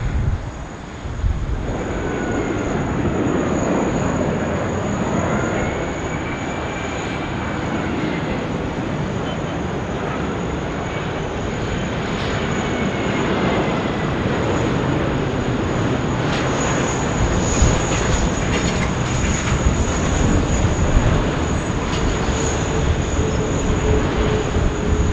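Qantas Airbus A380 arriving, its four jet engines giving a steady rumble with faint whining tones that bend in pitch as the aircraft passes.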